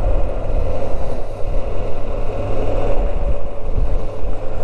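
Moto Guzzi V85TT's air-cooled V-twin running steadily while riding along, with a heavy low rumble of wind and road noise over it.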